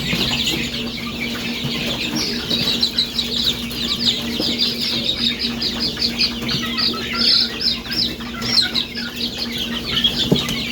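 A crowd of young chicks peeping, many short downward-sliding peeps overlapping in a rapid, continuous chorus, with a steady low hum underneath.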